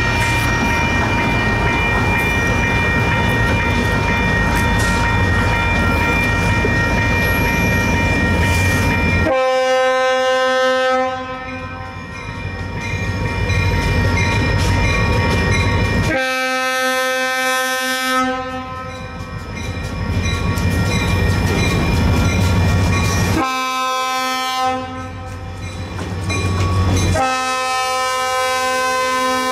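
Diesel locomotive air horn blowing the grade crossing signal: two long blasts, a short one, then a long one, starting about nine seconds in. Before that a crossing bell rings steadily over the rumble of the approaching train.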